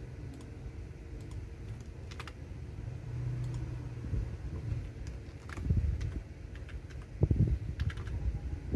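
Typing on a computer keyboard: irregular, scattered key clicks, with heavier low thuds from the keystrokes in the second half.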